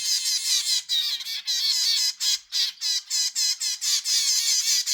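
Baby zebra finches begging: a rapid, unbroken run of high-pitched chirping calls, about five a second.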